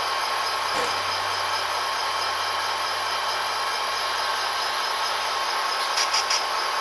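Sound-decoder diesel engine sound of model SD40T-2 locomotives idling, a steady running drone from small onboard speakers, with three quick high ticks about six seconds in.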